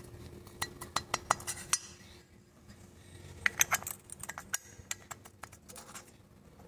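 Light metallic clicks and clinks in quick clusters, a run in the first two seconds and another around three and a half seconds in: steel tappet buckets being handled and set into their bores in a VW AP aluminium cylinder head.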